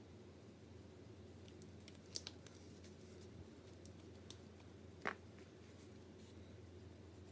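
Near silence: a steady low hum with a few short, sharp clicks, the loudest about five seconds in.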